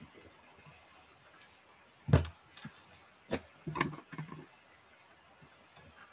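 Loose sheets of paper being handled over a sketchbook on a table: a sharp knock about two seconds in, then a few shorter knocks and paper rustles over the next two seconds.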